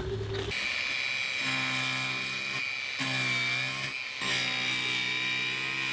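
Angle grinder running with a steady high whine as it grinds back fiberglass around a hole in the deck, under background music with sustained notes.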